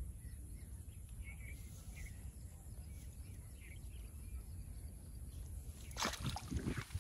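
Faint bird chirps over a low steady rumble, then about six seconds in a hooked fish splashing and thrashing at the water's surface as the bamboo pole is struck.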